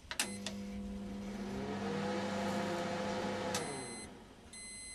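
Microwave oven started with a click of its button, then running with a steady hum for about three and a half seconds before winding down, followed by its beep.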